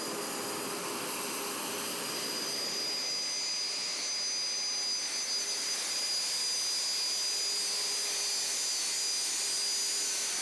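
BAE Hawk jet trainer's turbofan engine running at low power while taxiing, a steady rushing noise with a high whine over it.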